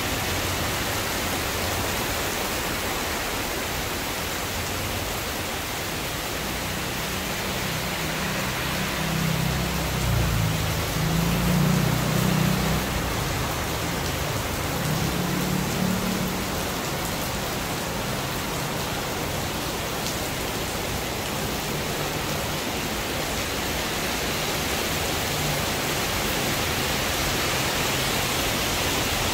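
Rain falling steadily, a continuous even hiss. A low rumble swells for several seconds in the middle and fades.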